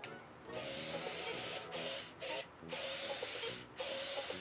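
MiBro Supabad toy robot's small electric drive motor whirring as it rolls along on its tracks, in several short runs with brief pauses between them.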